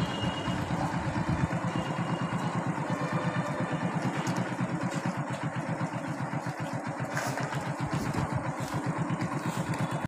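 Small motorcycle engine running at low speed with a steady, rapid putter, under a hiss of air and street noise.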